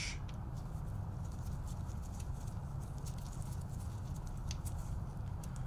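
Steady low hum with a few faint, scattered ticks as a 2.5 mm hex wrench turns a small screw out of the speed-sensor mount on an e-bike frame.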